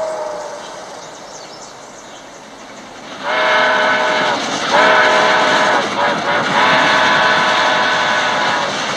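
Whistle of a Southern Pacific Daylight streamlined steam locomotive blown three times, starting about three seconds in; each blast a loud, chord-like tone that slides up slightly as it opens, the third held longest. The train's running sound lies underneath.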